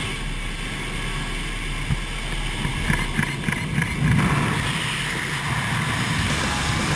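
Steady noise of a propeller aircraft's engines and wind rushing past the open jump door, heard inside the cabin. A few short knocks sound about three to four seconds in.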